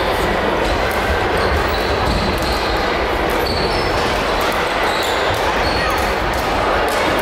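Busy badminton hall ambience: a steady, echoing din of play and distant voices, scattered with many sharp shuttlecock hits and a few short high squeaks.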